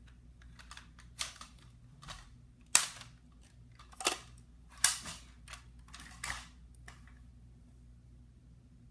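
Nerf blaster being worked, with a series of sharp plastic clacks and snaps from its priming mechanism and trigger. There are about seven over five seconds, the loudest about three seconds in, and they stop about seven seconds in. This is the noise the blaster makes.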